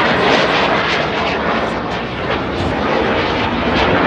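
An airplane's engine noise from an aircraft flying past at an air show, loud and steady with a slight dip about halfway.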